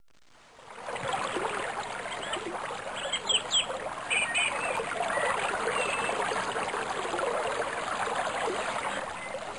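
Steady rushing noise like running water, with a few brief high chirps about three to four and a half seconds in.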